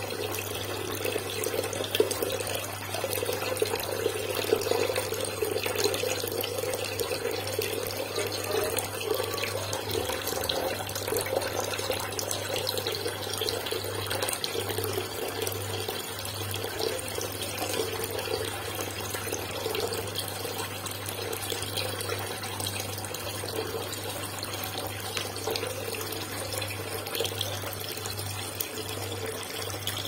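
Water running steadily in an aquarium over a low pump hum; the hum drops out briefly a few times.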